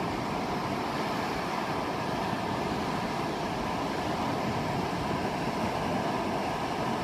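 Steady noise of wind on a phone microphone mixed with ocean surf, with no distinct events.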